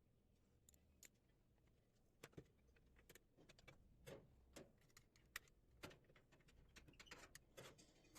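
Faint, irregular clicks and light knocks of tools and metal parts being handled while a washing machine is taken apart. The sounds come more often from about two seconds in.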